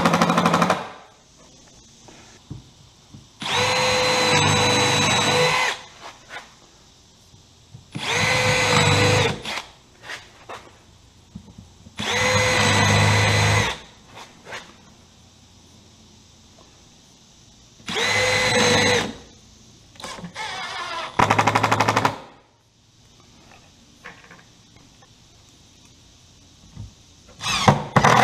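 Milwaukee M12 Fuel 12-volt impact driver on its lowest range driving screws into wood, in about five short runs of a second or two each, a few seconds apart, each a steady motor whine over a fast hammering rattle.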